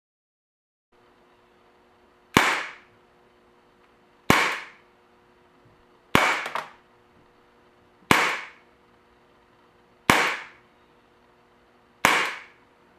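Umarex Beretta M92 A1 CO2 blowback BB pistol fired six single shots in semi-auto mode, evenly spaced about two seconds apart. Each shot is a sharp crack that dies away within half a second.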